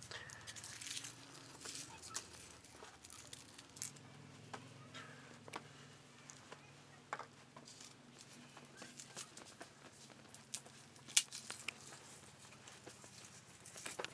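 Soft rustling and scattered light taps and clicks of hands working bread dough on a flour-dusted cloth, with one sharper click a little past the middle.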